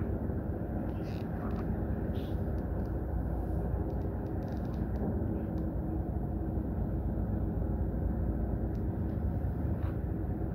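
Steady low drone of a ship's engine running, even in level, with a few faint ticks over it.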